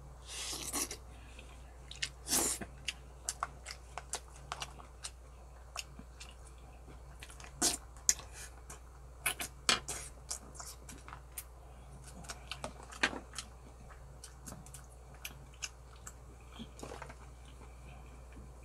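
A man eating braised pork ribs close to the microphone: a slurp in the first second and another about two seconds in, then chewing and lip smacks with scattered sharp clicks.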